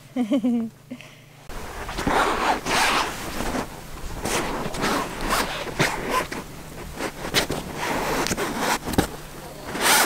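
Nylon hammock fabric rustling and scraping close up as a small dog shifts and moves about on it, a dense run of quick scratchy strokes that starts about a second and a half in.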